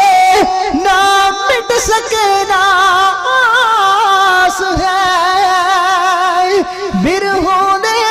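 Male kavishri singing in Punjabi without instruments: a high voice holding long, drawn-out notes that waver and slide, between lines of the verse.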